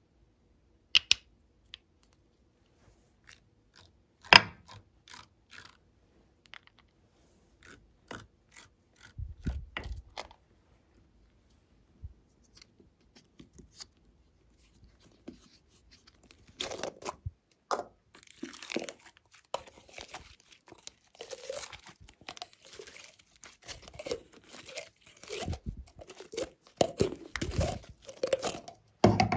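Hands working glossy slime: a few sharp clicks and taps, then from about halfway through a dense run of sticky crackling and popping as the slime is pressed, stretched and mixed.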